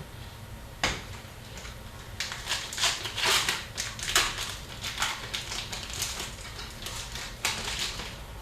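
Upper Deck hockey card packs and cards being handled: a sharp snap about a second in, then about six seconds of crisp crinkling and rustling.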